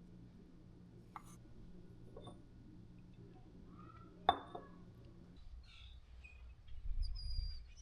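A few light clinks, like glass or dishware being handled, over a steady low hum; one clink about four seconds in is louder than the rest. The hum stops about five and a half seconds in, and a low rumble builds near the end.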